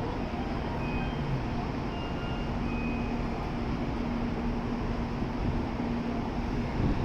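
Steady rumble and low hum of a Shinkansen station platform with a train standing at it, with a few faint, short high tones.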